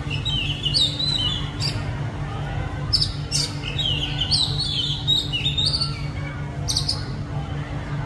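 Oriental magpie-robin singing: several short phrases of whistled, gliding notes, with pauses between them. A steady low hum runs underneath.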